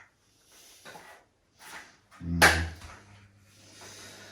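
Parts of a baby rocker being handled: a few soft rustles and scrapes, then one loud knock about halfway through, followed by a low steady hum.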